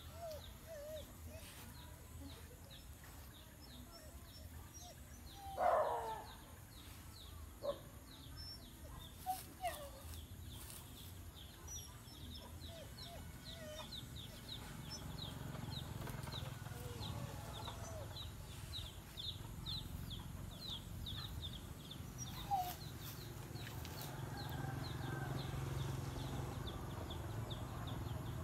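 Chickens clucking now and then, with one louder short squawk about six seconds in. Behind them runs a rapid series of high chirps, about three a second, and a low hum that grows louder about halfway through.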